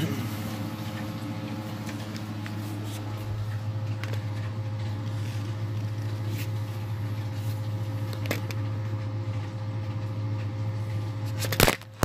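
A steady low machine hum, with a few light handling clicks and one sharp knock near the end.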